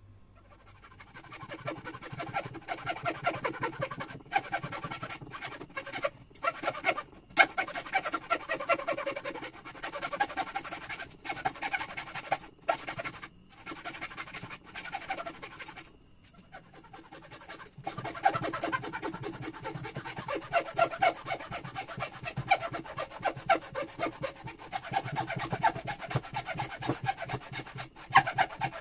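Hacksaw cutting across a pine batten by hand, in runs of rasping back-and-forth strokes with a short pause about sixteen seconds in.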